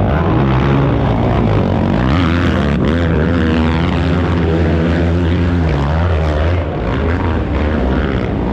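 Several race ATV engines running and revving together, their pitches rising and falling over one another as the machines go through the course.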